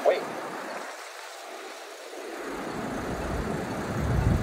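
Car traffic on a wet, slushy street: tyre hiss on wet pavement, with a low rumble that builds over the last two seconds and stops abruptly near the end.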